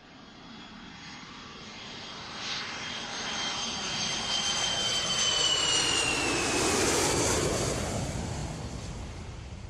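Jet airliner taking off and passing by: the engine noise builds, with a high whine that slowly falls in pitch, then eases near the end.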